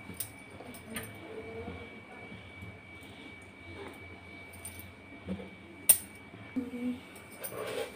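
Light clinks and taps of a plastic oil bottle and utensils handled around a metal kadai while cooking oil is poured into the pan, with one sharper click about six seconds in, over a faint steady hum.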